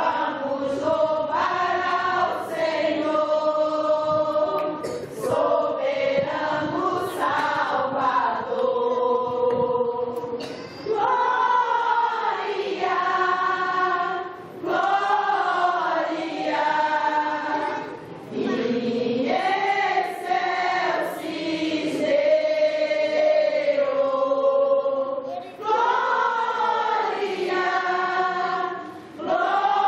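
A church choir of mostly women singing a Christmas cantata in held, sustained phrases, with short breaks between the phrases.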